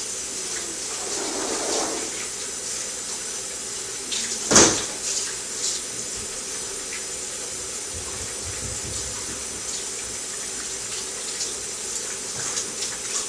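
Water running steadily from a tap into a sink, with one sharp knock about four and a half seconds in and a few lighter clicks later.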